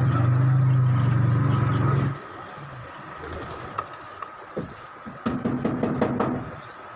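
A steady low engine hum cuts off abruptly about two seconds in. A quieter stretch follows, with a few light knocks and clicks.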